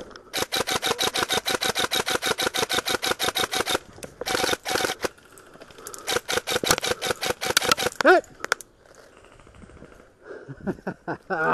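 Airsoft electric rifle firing on full auto, a rapid even stream of about a dozen shots a second in long bursts, the first lasting about three and a half seconds. A short shout comes about eight seconds in.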